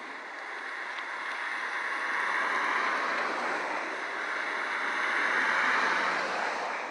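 Jet-engine noise from a formation of CT-114 Tutor jets passing overhead. It is a steady rushing sound that grows louder a couple of seconds in, dips briefly, peaks again near the end, then begins to fade.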